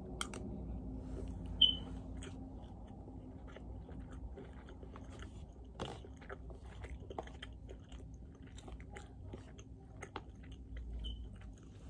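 A person chewing a mouthful of food close to the microphone: faint, irregular wet clicks and smacks, with one sharper, louder click about one and a half seconds in.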